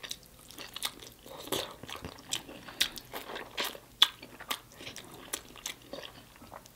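Close-miked chewing and lip smacking while eating saucy rotisserie chicken, with irregular sharp smacks and clicks about twice a second.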